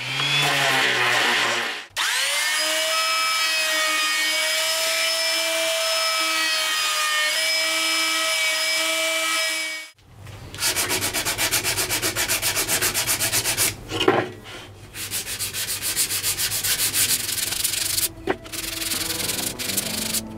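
Electric random orbital sander running on a wooden block with a steady whine. After about ten seconds it gives way to hand sanding with a sanding sponge: rapid back-and-forth rubbing strokes on the wood, with an occasional knock.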